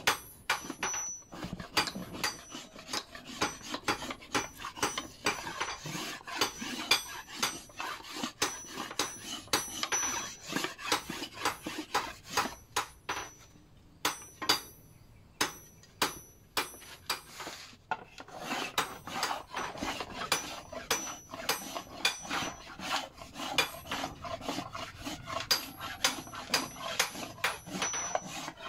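Knife shaving and scraping along a wooden mandau (machete) replica blade being carved by hand: a long run of short, irregular scraping strokes, with a couple of brief pauses about halfway through.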